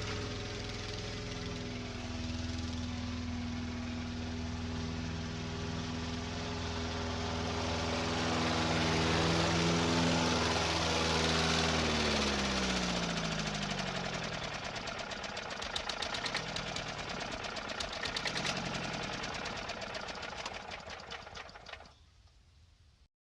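A recorded engine sound effect. The engine runs steadily, then drops in pitch as it winds down, and ends in a fast clattering of ticks that fades away to silence near the end.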